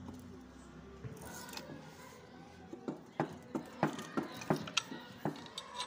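A run of sharp metallic clicks or knocks, about two to three a second and unevenly spaced, starting about three seconds in over a faint background hum.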